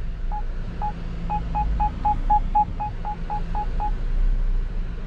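Car parking-sensor warning beeps of a BAIC Beijing X7: short identical mid-pitched beeps, two slow ones and then about four a second, stopping about four seconds in. The faster rate means an obstacle is close. A steady low hum runs underneath.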